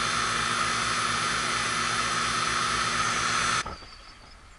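Running air-conditioning unit, a steady hiss-like noise with a hum of several fixed tones, that stops abruptly about three and a half seconds in.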